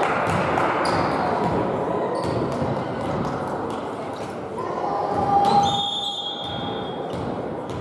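Indoor volleyball play in an echoing sports hall: players shouting and calling, with sharp knocks of the ball and feet on the court, and a short high squeak-like tone about five and a half seconds in.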